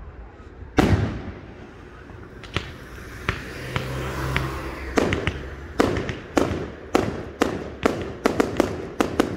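Fireworks display going off: one loud bang about a second in, a few sharper cracks, then from about halfway a quick run of bangs, roughly two a second and coming faster near the end.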